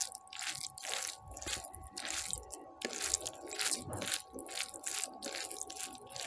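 Fingers mixing rice with a crumbly fried topping by hand, giving an irregular run of small crackling crunches, several a second.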